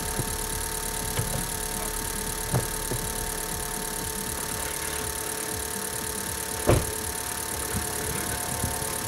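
Car engine idling steadily just after a cold start at about minus 20 °C, the nearly flat battery boosted by a jump starter pack. A single sharp knock is heard about two-thirds of the way through, with a few fainter clicks.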